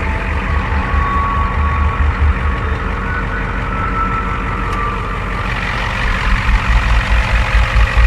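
1994 Ford F-250's 7.3-litre V8 diesel idling steadily, with its rumble growing louder and more uneven in the last couple of seconds.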